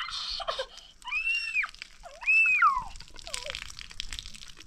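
Water from a garden hose splashing over a child's head as the hair is rinsed. Over it come two high cries about a second apart, each rising then falling in pitch, and a shorter one after them.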